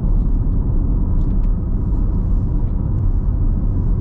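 Steady low rumble of road noise inside a moving car.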